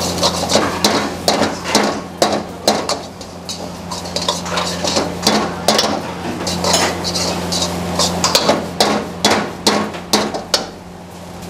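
Steel ladle striking and scraping a black wok as jeera rice is stirred and tossed: irregular sharp metal clanks, several a second in places, over a steady low hum.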